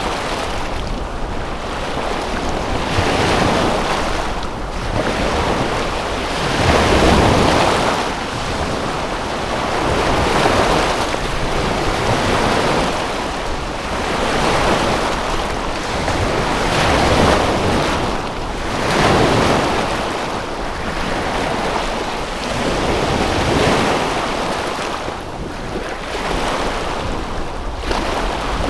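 Waves washing in on a lakeshore, swelling and falling back every two to three seconds over a steady rush.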